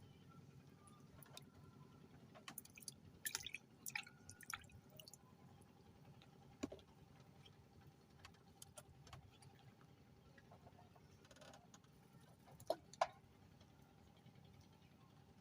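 Near silence: faint outdoor ambience with scattered small clicks and taps, a cluster of them a few seconds in and two sharper ticks near the end.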